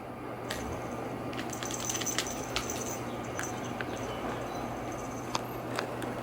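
Scattered light clicks and taps, with a few sharper ones about two and a half and five seconds in, over a steady low hum.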